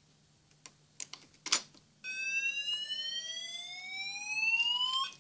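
A few sharp clicks, then about two seconds in a mini fire alarm sounder goes off: a slow rising whoop tone that sweeps upward for about three seconds and cuts off just before the end, ready to repeat.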